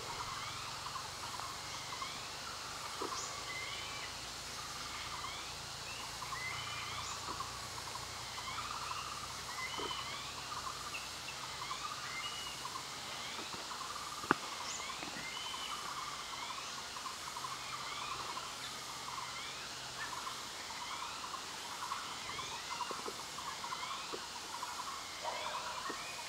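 Forest ambience: a chorus of many short rising calls repeated over and over, over a busy warbling layer lower down, with one sharp click about fourteen seconds in.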